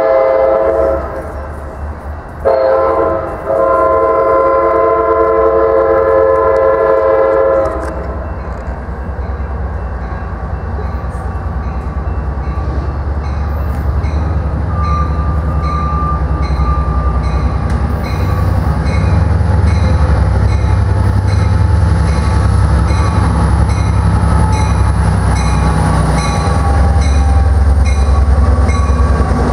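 Sounder commuter train's air horn blowing two blasts, a short one ending about a second in and a long one from about two and a half to eight seconds in. Then comes the train's low rumble, with faint rhythmic clicking of wheels on the rails, growing louder as it pulls into the station to stop, with a faint high whine in the last ten seconds.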